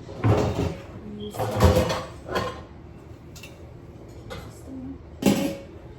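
Kitchen cupboard doors and cookware being handled while looking for a pot and its lid: a series of knocks and clatters, the loudest about a second and a half in, with another near the end.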